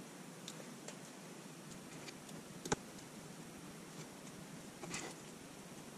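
A few faint, short clicks and taps over low room hiss, from hands handling and pressing down small pieces of grit traction tape on the perch platform; the sharpest click comes about midway.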